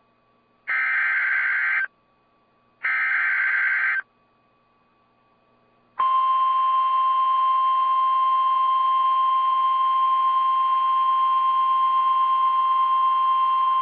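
NOAA Weather Radio emergency alert for a severe thunderstorm warning: the last two bursts of the SAME digital data header, each about a second long with about a second's pause between. After a two-second gap, the steady 1050 Hz warning alarm tone starts about six seconds in and holds.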